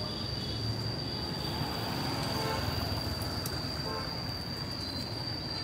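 Road traffic rumbling steadily, with a motorbike passing on the road, and a steady high-pitched whine underneath.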